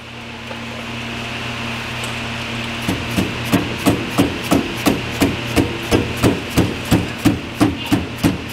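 Dead blow hammer striking a portal gear hub in a steady run of blows, about three a second, starting about three seconds in, bending its locking key over. A steady low hum runs underneath.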